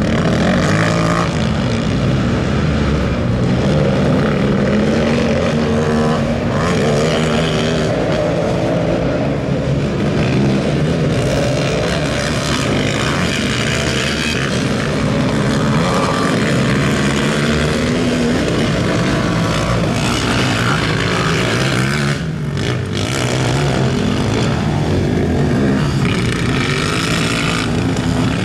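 Several racing quads with engines over 450 cc running hard around a dirt track. Their engine notes keep rising and falling as the riders accelerate and back off, with a brief lull about three quarters of the way through.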